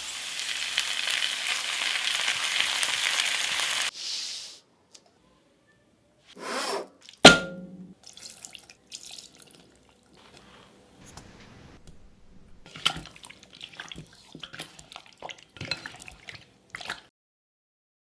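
Kitchen tap running for about four seconds, then stopping. About seven seconds in comes a single sharp clink with a brief ring, like a dish or bowl being set down, followed by light handling clicks and rustles.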